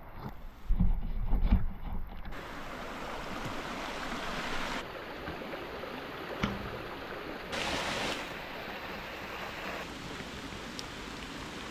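Heavy rain and running water, a steady rushing hiss that changes abruptly several times as short clips are joined. A few loud low thumps of wind or handling hit the microphone about a second in.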